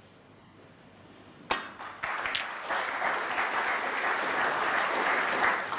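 A single sharp click of a snooker cue tip striking the cue ball, then audience applause for the retaken escape shot after a foul and a miss.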